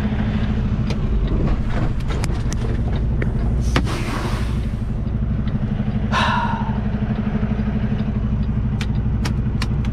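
Semi-truck diesel engine idling steadily, heard from inside the cab. A few clicks and knocks come through it, with a short burst of hiss about four seconds in and a brief higher-pitched sound around six seconds in.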